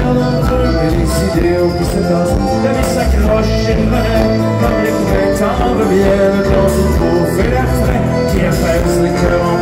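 Live folk-rock band playing a song, with accordion, guitars and drums and a singing voice over them, loud and steady.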